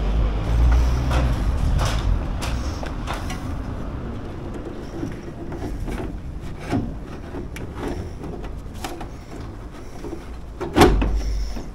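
Sheet-metal rain head being handled and pushed up into place against a gutter: scattered light knocks, clicks and scrapes, with one louder knock near the end.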